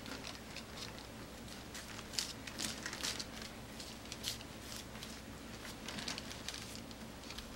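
Silicone basting brush dabbing and spreading a sticky seasoning sauce over flattened deodeok roots on parchment paper: soft, irregular wet pats and paper crinkles, several a second.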